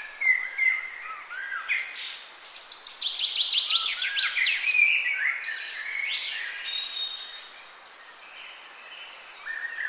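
Several songbirds chirping and singing over a faint background hiss, with a quick series of rapidly repeated notes about three seconds in; the calls thin out near the end.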